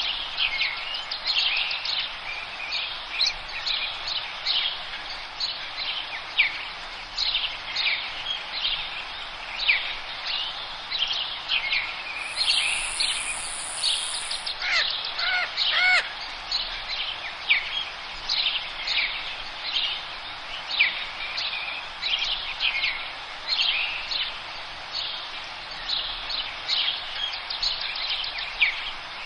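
Dense chorus of many small forest songbirds chirping and twittering over a steady background hiss. A thin, very high note is held for about two seconds a little before the middle, and a lower, looping phrase of a few notes follows just after.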